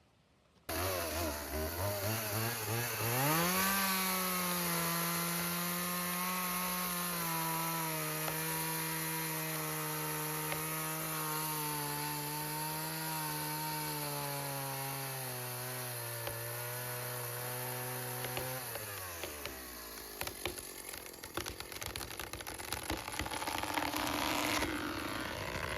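Two-stroke chainsaw revving up and cutting through a pecan trunk at full throttle, its pitch sagging slowly under load, then dropping away. A run of sharp cracks and snaps follows and grows louder as the tree gives way.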